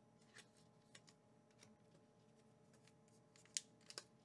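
Faint, scattered light clicks of trading cards being handled and flicked through, with a few sharper snaps near the end.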